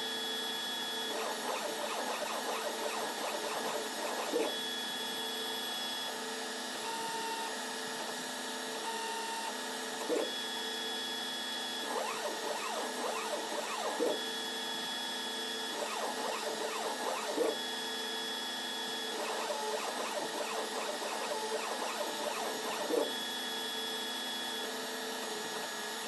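CNC engraving machine running: its stepper motors whine in steady tones that switch and change pitch as the axes move, with a sharp tick every few seconds.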